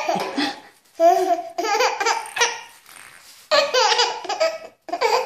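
A baby laughing in short, high-pitched bursts, in about three runs with brief pauses between them.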